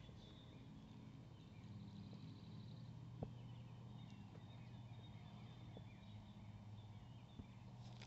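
Quiet outdoor ambience: faint bird chirps over a low steady hum, with one soft tick about three seconds in.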